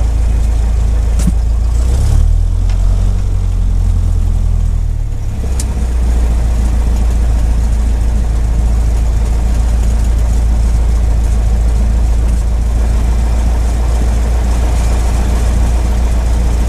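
Single-engine piston light aircraft's engine and propeller droning steadily, heard from inside the cockpit. About two seconds in the low drone shifts in pitch for a few seconds, then settles back.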